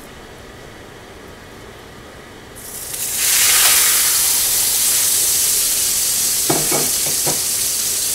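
A pork shoulder blade steak is laid into hot oil in a nonstick frying pan, setting off a loud, steady sizzle about three seconds in. Before that there is only the faint hiss of the hot oil.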